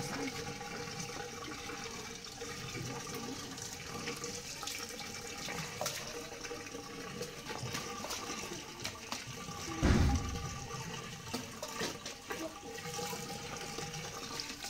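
Water running steadily from an outdoor wall tap as hands are washed under the stream, splashing onto the concrete; a single dull thump about ten seconds in.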